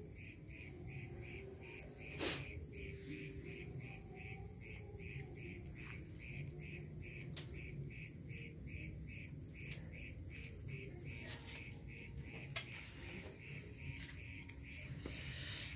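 Night insects chirping: a steady high drone under a regular pulsed chirp about three times a second. A single sharp click stands out about two seconds in.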